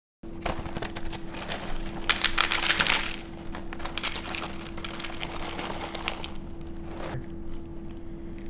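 Dry cinnamon cereal squares poured into a bowl, a dense rattle of many small hard pieces. It is heaviest a couple of seconds in and thins out after about six seconds. A steady low hum sounds underneath.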